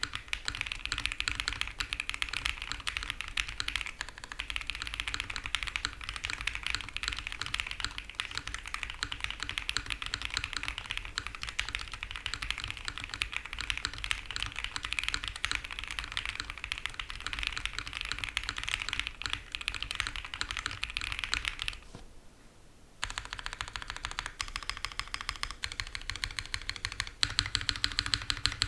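Fast typing on a custom OwLabs x Mr. Suit TKL mechanical keyboard with lubed Konpeitou switches, a POM plate and GMK keycaps, giving a dense run of keystroke clicks. The typing stops for about a second a little past two-thirds through, then resumes with louder, more separate strokes near the end.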